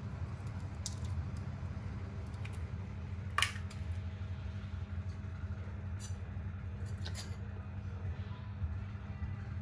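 Quail eggs being cracked open by hand over a small frying pan: light shell clicks and crunches, with one sharp crack about three and a half seconds in and a couple more clicks later, over a steady low hum.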